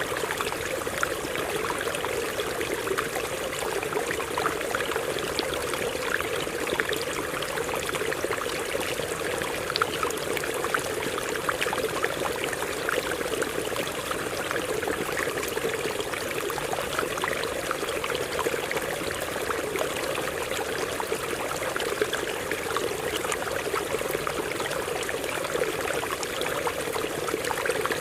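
Stream water running over rocks, a steady, even rush.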